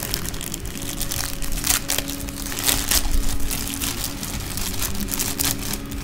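Clear plastic bag crinkling and crackling as hands work a flat helmet visor out of it, with louder crackles a little under two seconds in and again around three seconds in.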